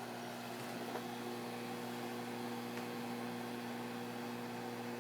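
Microwave oven running, a steady electrical hum.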